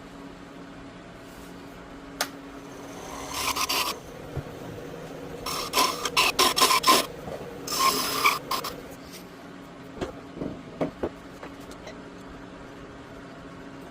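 Hand file strokes, scraping across a workpiece in three short quick bouts, then a few light knocks. A faint steady low hum runs underneath.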